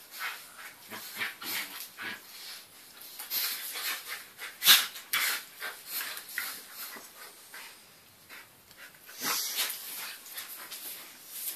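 A Eurasier puppy and its mother play-wrestling on a tiled floor: a run of short scuffles and dog noises, with one sharp, louder sound a little under five seconds in and a quieter lull around eight seconds.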